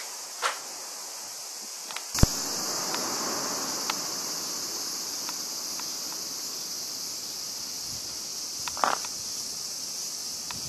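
A steady high-pitched chorus of insects chirring. It grows louder after a sharp knock about two seconds in, with a few scattered clicks and a thump near the end.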